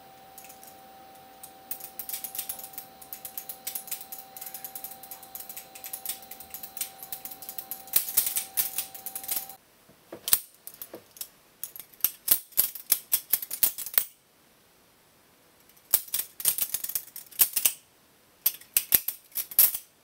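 Balisong (butterfly knife) being flipped: fast, sharp metallic clicking and clacking of the handles swinging around the blade and knocking together. The clicking is dense and continuous at first, then comes in quick bursts with two short pauses in the second half.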